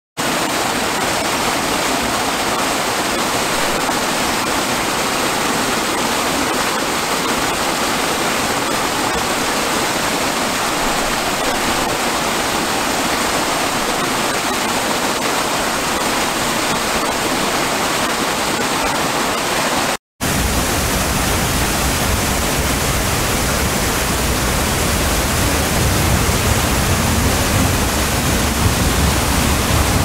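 Waterfall rushing: a steady, even noise of falling water. About two-thirds of the way through it cuts out for a moment and resumes as another waterfall, deeper, with more low rumble.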